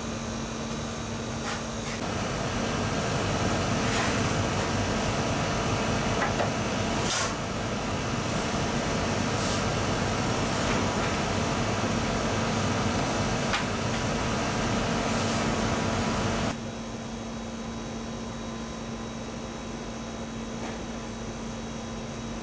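Steady whirring hum of a running convection oven's fan and other bakery machinery. It grows louder with a rushing noise about two seconds in, with a few light clicks, then drops back suddenly about three quarters of the way through.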